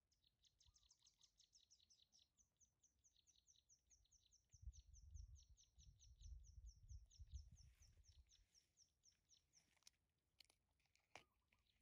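Faint, rapid run of high bird chirps, about six a second, that stops near the end. A low rumble comes up in the middle.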